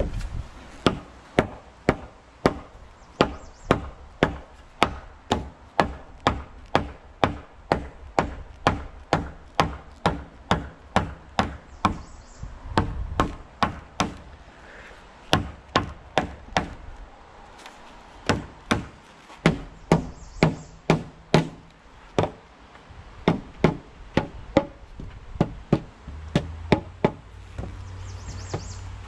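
Hammer blows on timber framing: runs of steady, sharp strikes, about two to three a second, broken by a few short pauses.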